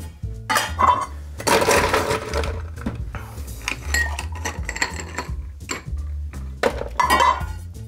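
Ice cubes scooped from an ice bucket with a metal ice scoop and tipped into a glass of cocktail mix, rattling and clinking in several bursts.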